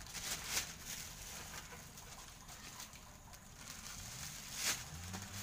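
Paper and a plastic bag of chopped chicken rustling and crinkling as they are handled for wrapping. There are sharp crinkles about half a second in and again near the end, with quieter rustling between.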